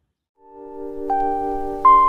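Background music fading in after about half a second of silence: a soft held chord, with two higher single notes added, one about a second in and one near the end.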